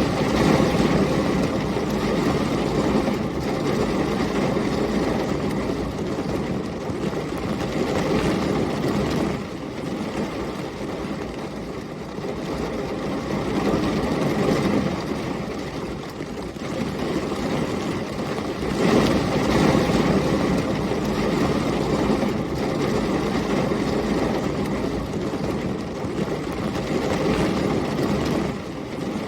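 Thunderstorm: heavy rain and storm wind with a low rumble that swells and fades several times.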